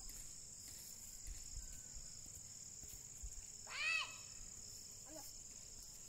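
Crickets chirring steadily in a high, even drone. About four seconds in comes one short call whose pitch arches up and then down.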